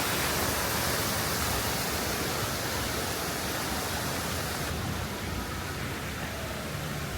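Steady rushing hiss of running water, easing slightly in its highest part about five seconds in.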